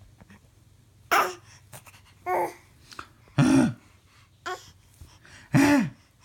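A six-month-old baby babbling: about five short vocal sounds, roughly a second apart, the louder later ones falling in pitch.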